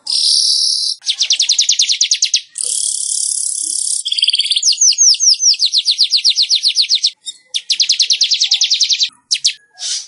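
Weaver (manyar) song: fast, dry chattering trills of about a dozen notes a second, alternating with buzzy hissing wheezes, in repeated phrases with brief pauses between them.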